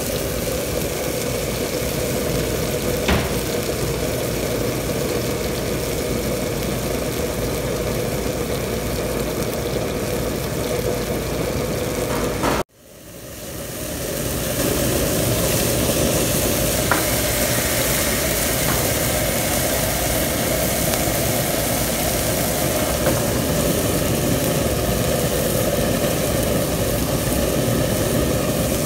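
Steady hum and hiss of a commercial gas cooking range, with fish frying in oil in a nonstick pan on a low flame. About halfway through the sound cuts out abruptly, then returns.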